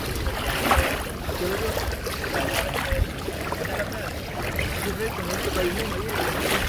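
Water splashing and sloshing around the legs of several people wading thigh-deep through a muddy estuary, with faint voices calling.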